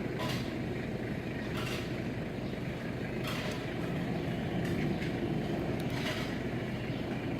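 Toyota Prado four-cylinder diesel engine running steadily, with a brief hiss recurring about every second and a half.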